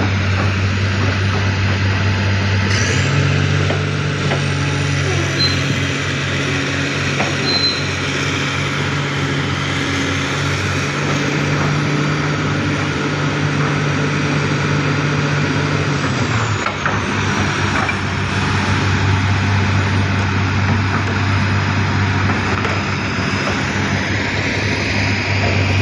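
Excavator's diesel engine running steadily. A second, higher engine tone joins about three seconds in and drops away at about sixteen seconds.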